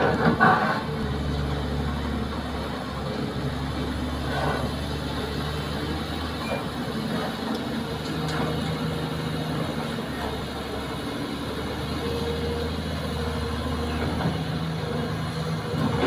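Kobelco hydraulic excavator's diesel engine running steadily under working load as it digs, swings and loads soil, its note shifting a little. There are knocks and clatter from the bucket in the soil in the first second and again at the end.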